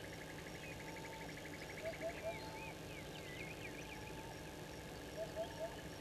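Several wild birds calling at once in the bush. A low three-note call comes twice, about three seconds apart, and is the loudest sound. Other birds add a short held whistle repeated a few times, a rapid trill in the first second or so, and scattered higher chirps.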